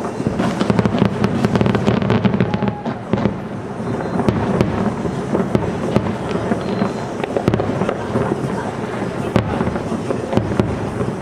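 Aerial firework shells bursting in rapid succession, a dense run of bangs and crackles in the first few seconds that then continues more sparsely over a steady rumble.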